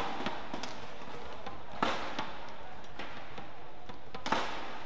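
Badminton rackets striking the shuttlecock during a rally: two sharp hits about two and a half seconds apart, the first nearly two seconds in, with fainter ticks between.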